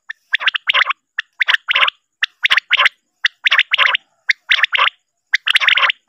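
Male common quail calling: its three-note 'wet-my-lips' song repeated about once a second, each phrase a short first note followed by two longer ones.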